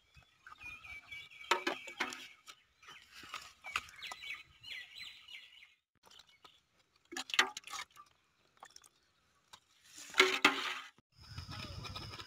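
Birds chirping in the background, with scattered crackles and clicks of palmyra palm leaves being handled and folded. A steady low rumble sets in near the end.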